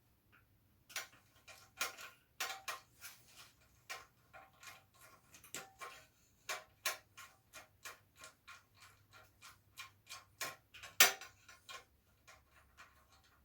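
Socket ratchet clicking in short irregular runs while 10 mm mudguard bolts are tightened, with one louder click near the end.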